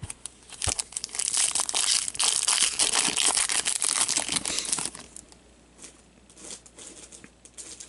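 Foil wrapper of a trading-card pack crinkling and tearing as it is ripped open, a dense crackle lasting about four seconds, then lighter rustling and small clicks as the cards inside are handled.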